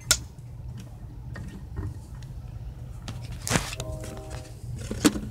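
Handling noises under the hood with the engine off: a sharp click at the start, a rustle about three and a half seconds in followed by a short squeak, and another click near the end. They come from hands refitting the rubber vacuum hose at the brake booster, over a low steady hum.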